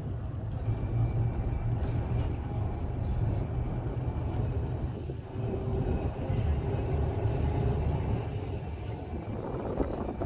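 Heritage double-decker tram running along the rails, its rolling noise under a constant deep rumble of wind buffeting the smartphone microphone. A faint steady whine joins in for a few seconds about halfway through.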